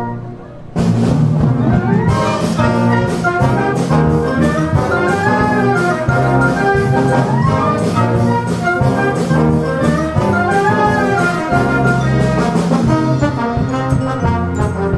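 School concert band playing a pop arrangement: a held chord drops away under a second in, then the full band comes back in with brass and woodwinds over a steady drum beat.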